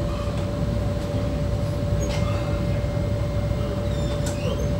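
Steady low drone of the Express Bahari 2F fast ferry's engines running underway, heard inside the passenger cabin, with a constant hum tone over the rumble.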